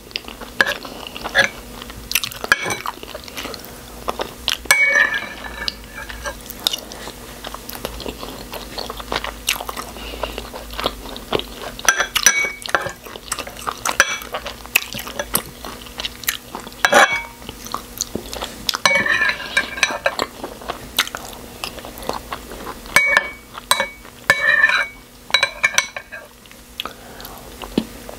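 Close-miked eating sounds: a metal spoon clinks and scrapes against the bowls again and again, between bouts of chewing and mouth noise.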